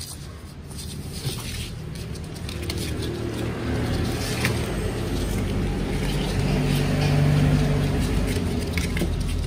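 Low, steady motor-like rumble that swells louder through the middle and eases a little near the end, over faint wet clicks from newborn puppies suckling.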